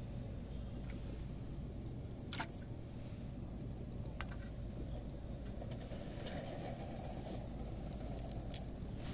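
Steady low background rumble with a few short, sharp clicks and taps as small live fish are picked out of a fishing net and dropped into a metal basin of water.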